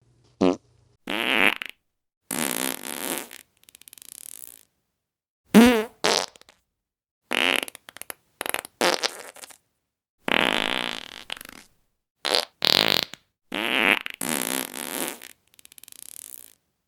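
Fart sound effects played one after another: about fifteen separate farts of varying length with short silent gaps between them. Some are short and sputtering, some long and drawn out, and the loudest, about six seconds in, has a wavering pitch.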